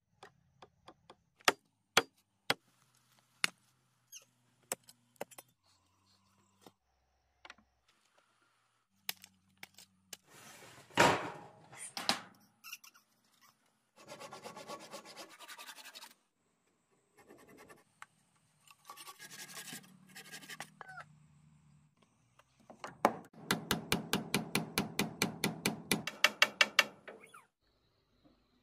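Hand work on wood: a string of sharp knocks and taps, then several stretches of quick, even rubbing strokes. The last and loudest stretch runs at about six strokes a second.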